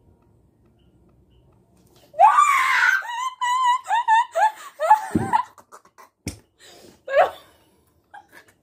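Girls laughing hard: about two seconds in a loud, high shriek of laughter breaks out, followed by a run of rhythmic 'ha-ha' laughs and shorter giggles, with one sharp click partway through.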